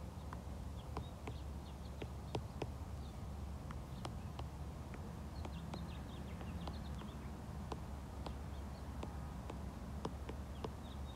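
A stylus tip tapping and sliding on an iPad's glass screen during handwriting: light, irregular clicks with a few faint squeaks, over a steady low hum.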